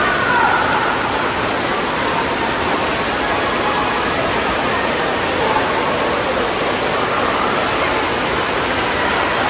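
Steady rush of spraying and splashing water from an indoor water park's splash-play structure and fountains.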